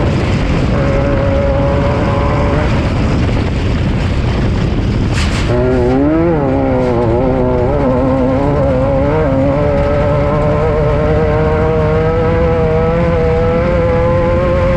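Off-road race vehicle's engine running hard under heavy rumbling noise. Its pitch wavers up and down for a few seconds about halfway through, then holds steady and climbs slightly. There is a sharp knock about five seconds in.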